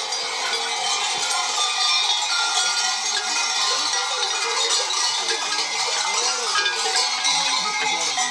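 Many large bells worn by a procession of sheepskin-clad carnival mummers clang continuously as the mummers walk.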